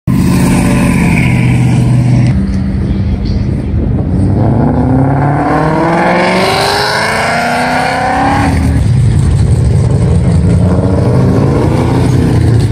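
Loud engine exhaust of cars driving past. A steady low rumble opens, then an engine revs up as a black late-model Ford Mustang accelerates past, its note rising for several seconds before dropping off suddenly, and lower engine rumble follows.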